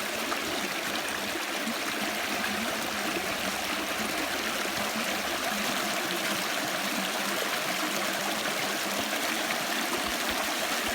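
Creek water flowing steadily, an even rushing hiss.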